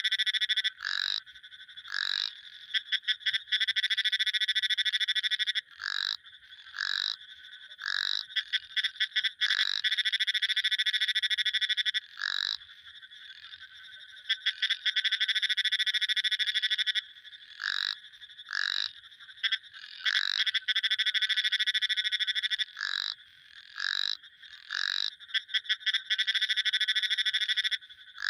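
Frogs calling: long rapid trills lasting several seconds alternate with short single notes, repeated through the whole stretch.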